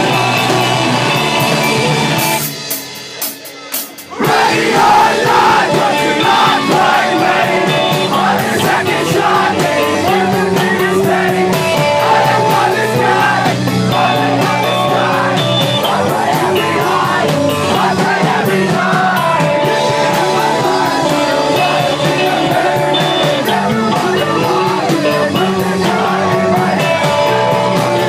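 Live rock band playing loud, with electric guitars, drums and vocals. The band breaks off about two and a half seconds in, then crashes back in together about a second and a half later.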